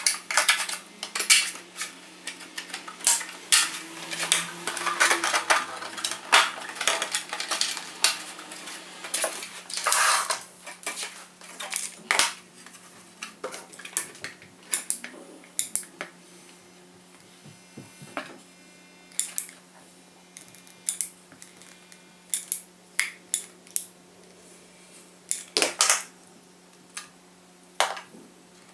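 Irregular clicking and clattering of small hard parts and tools being handled on a workbench, busier in the first half and sparser later. A steady low hum runs underneath.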